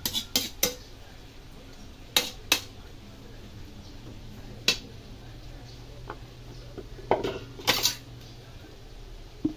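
Metal spatula clanking and scraping against a large metal wok as a vegetable and noodle filling is stirred, in short irregular strokes, with a quick run of three at the start and another flurry about seven to eight seconds in.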